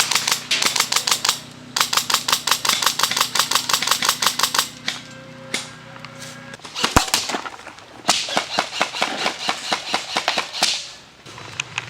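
Airsoft guns firing in rapid bursts of about eight shots a second, with single shots between the bursts. A single sharp crack about seven seconds in is the loudest sound.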